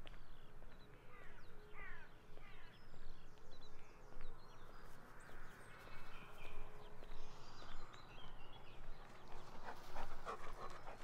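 Footsteps of a walker at a steady pace, about two a second, with small birds chirping and singing. Near the end comes a quick run of sharp calls.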